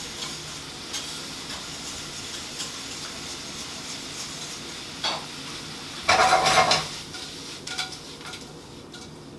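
Shrimp sizzling as they sauté in a frying pan, a steady hiss. About six seconds in, a utensil clatters loudly against the pan for a moment, and after that the sizzle is quieter, with a few light clicks.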